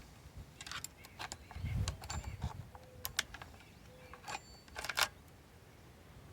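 Old saw chain being taken off a Husqvarna 440 chainsaw's bar: scattered metallic clinks and rattles of the chain links, the loudest cluster about five seconds in.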